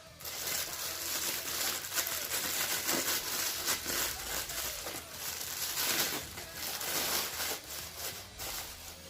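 Plastic packaging crinkling and rustling as it is handled, with many small crackles.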